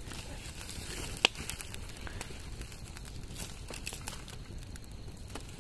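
Wood fire crackling, with scattered sharp pops, one louder about a second in.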